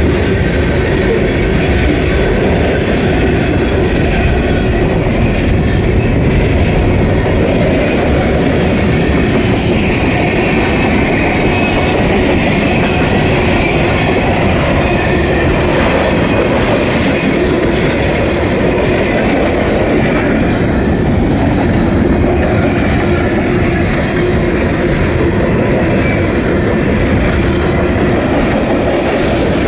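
Cars of a Norfolk Southern mixed freight train rolling past close by: a steady, loud rumble of steel wheels on rail.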